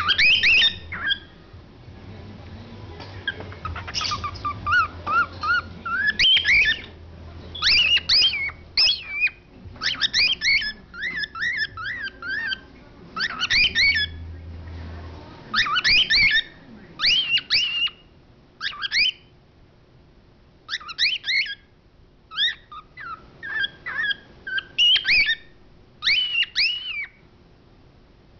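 Cockatiel calling repeatedly: clusters of short, high-pitched chirps with a second or two between them, and now and then a warbling whistled phrase.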